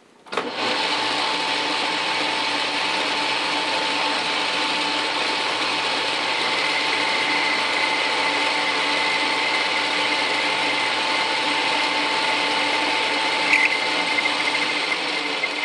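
Atlas metal lathe switched on about half a second in, then running steadily as it turns an aluminum heat sink for a light cut. It makes an even mechanical whir from its motor, belts and gear train, with a few steady tones, and dies away at the very end.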